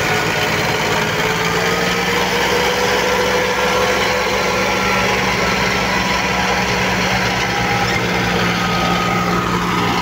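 Tractor and truck diesel engines running steadily under heavy load as the tractor tows the loaded truck out of deep sand, the truck's rear wheels spinning in the gravel.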